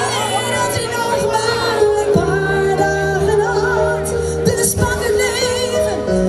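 Live Dutch-language pop song played over a PA system, with a woman singing into a microphone over the backing music.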